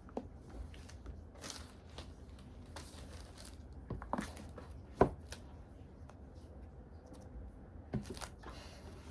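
Product box packaging being opened by hand: plastic wrap and paper tabs tearing and crinkling, with scattered small handling clicks. A sharp click about five seconds in is the loudest sound.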